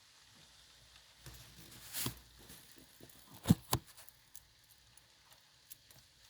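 Hailstones striking a hard surface: scattered light ticks, with two sharp loud hits a quarter second apart about halfway through.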